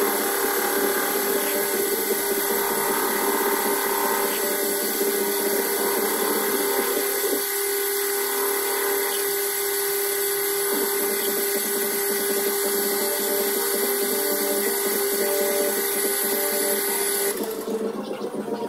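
Small metal lathe running, its motor and drive giving a steady whine while it turns a Dellorto PHBG 19 carburettor body held in the chuck, shortening the diffuser. Near the end the lathe is switched off and the whine cuts out.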